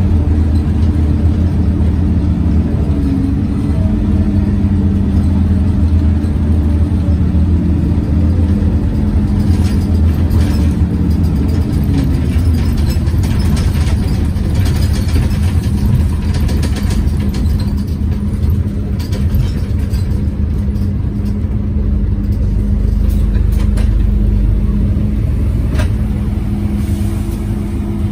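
Interior of a Scania OmniCity CN230UB city bus under way: a steady drone from the running roof ventilation fan and the drivetrain over road noise, with scattered short rattles. The drone's pitch falls and fades about twelve seconds in and picks up again near the end.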